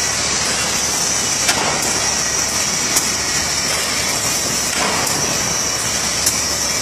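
Butterfly wire hanger welding machine running: a steady mechanical hiss, with a few sharp clicks.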